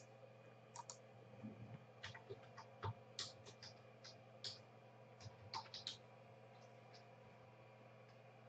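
Faint typing on a computer keyboard: a dozen or so irregular key clicks that stop about six seconds in, over a low steady hum.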